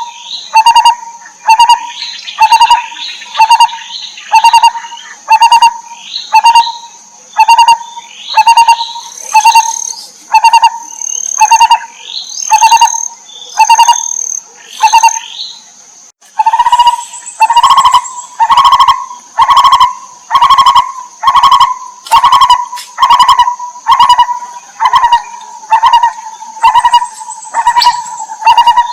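Lineated barbet calling: a loud, low note repeated over and over, a little more than once a second. Higher chirps from other birds and a steady high whine run underneath. There is a brief break about halfway through.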